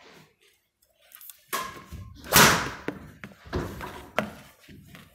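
A badminton smash with a Yonex Isometric Lite Pro racket: after a near-silent start, a loud swing and hit on the shuttlecock about two seconds in, followed by a few sharper knocks.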